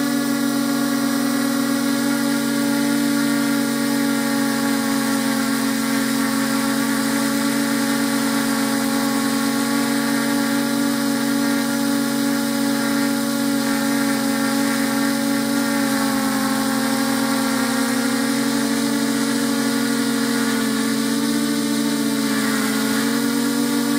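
A multirotor drone's motors and propellers buzzing steadily, a pitched whine with a hiss over it, heard from the camera on board the drone. The pitch sags slightly a few times in the second half as the motor speed changes.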